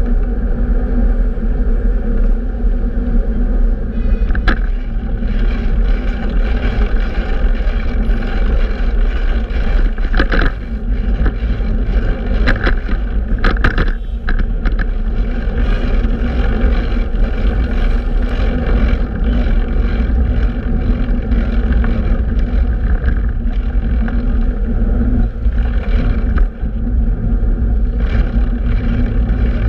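Steady wind rumble and road noise on the microphone of a fixed-gear bicycle riding through city streets, with a few sharp knocks around the middle, typical of the bike jolting over bumps.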